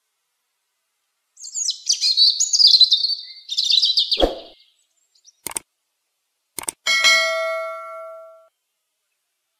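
A songbird's fast, high twittering song phrase lasting about three seconds, with a dull thud near its end. Then come two sharp clicks and a single metallic ding that rings out for about a second and a half.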